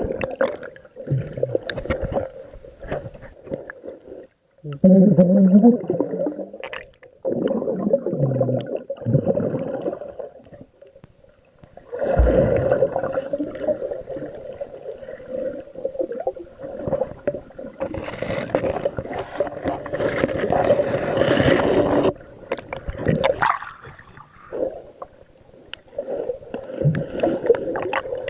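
Muffled underwater sound heard through a submerged camera: water gurgling and sloshing around it in uneven swells, with scattered knocks and a faint steady hum underneath.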